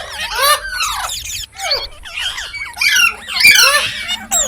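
Green parrot chirping: a rapid run of short, squeaky calls that swoop up and down in pitch, louder about three seconds in.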